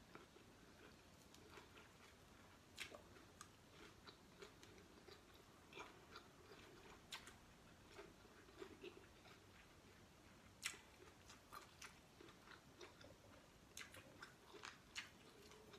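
A person chewing food close to the microphone: quiet chewing with scattered short crunches and mouth clicks, one louder crunch about two-thirds of the way through.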